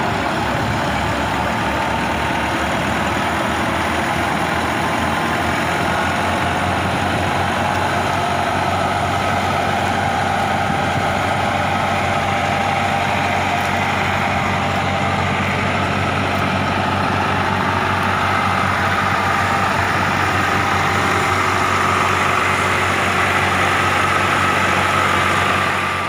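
Massey Ferguson 385 tractor's diesel engine running steadily under load, driving a wheat thresher, with the thresher's whirring mixed in. A steady whine runs through it, drifting slightly in pitch.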